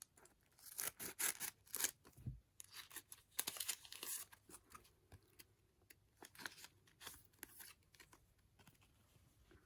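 Card packaging being torn open and rustled by hand, in irregular crackling bursts.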